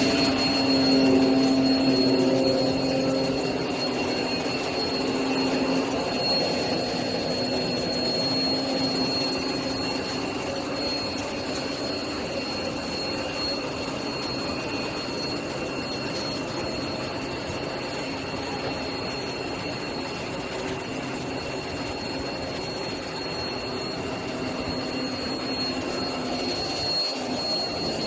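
CNC multi-layer cutting machine running: a steady mechanical whir with a constant low hum and a thin high whine, a little louder in the first few seconds.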